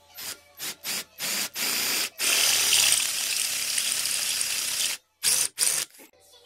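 Electric hand drill boring into a painted steel frame tube: several short trigger bursts, then about three seconds of steady drilling with the bit cutting metal, ending with two more short bursts.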